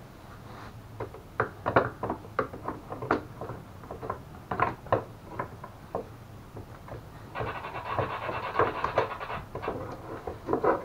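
Hand tools and parts being handled while fitting a bolt on the scooter's front bumper: a run of irregular knocks and clicks, then about two seconds of rapid rattling, with more knocks near the end.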